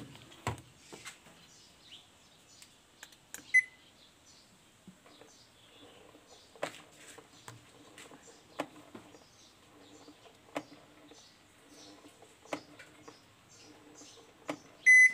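Toshiba top-load washing machine's lid-lock switch clicking in and out about every two seconds, with a faint hum and one short beep about three and a half seconds in. Near the end the machine starts its repeated error beeping: the lid lock is not staying in position, so the wash cannot start.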